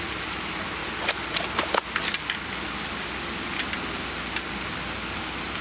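Steady outdoor rushing noise with a flurry of sharp clicks and rustles about a second in and a couple of single clicks later: the handling of a freshly landed carp as it is unhooked.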